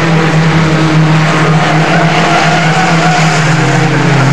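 MINI Challenge race cars running hard through a corner, their engines held at high revs, the main engine note dropping in pitch about three seconds in. A higher wavering squeal runs through the middle, the tyres squealing under cornering load.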